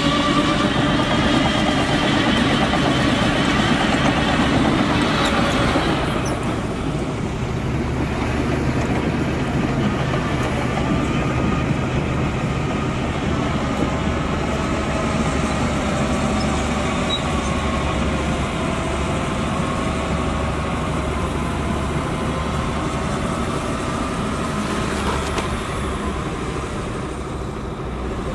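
Diesel engines of heavy earthmoving machinery running steadily. For the first six seconds the sound is louder, with a wavering whine over the engine; after that it settles to a lower, steadier run.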